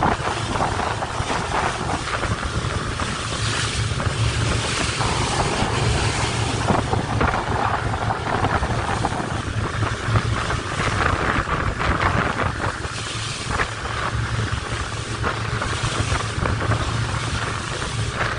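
Wind buffeting the microphone on a motorboat under way, over the steady low drone of its Evinrude outboard engine and the rush of water past the hull.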